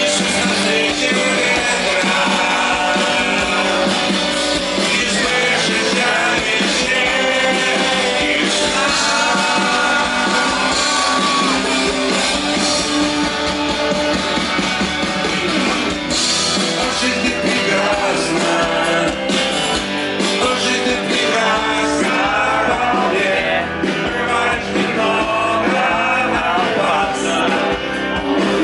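Live rock band playing a song with a singer's vocals over guitars and drums.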